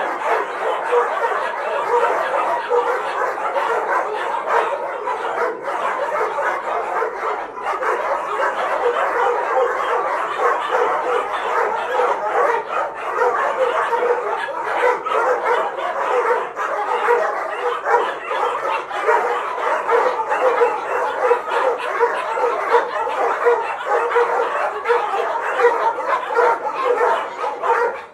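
Many shelter dogs barking and yipping at once, a continuous din of overlapping barks with no pause.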